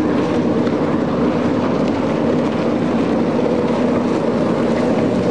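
Racing jet ski engines running at speed, a steady drone with no rise or fall.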